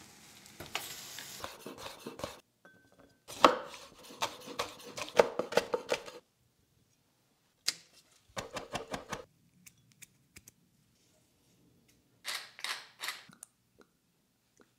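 Kitchen prep sounds: a gas burner flame hissing for about the first two seconds, then several bursts of rapid knife chopping on a cutting board, separated by short pauses.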